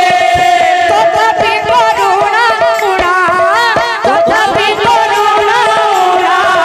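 Odia kirtan music: barrel-shaped mridanga drums beaten in a quick rhythm under a wavering, ornamented melody line over a steady held drone.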